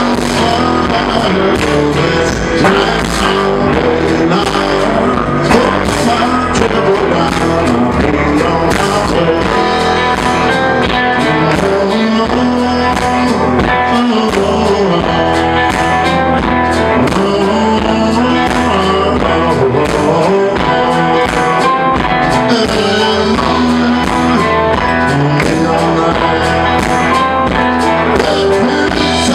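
Loud live blues band playing a rock-and-roll number: electric guitars, bass guitar and drum kit.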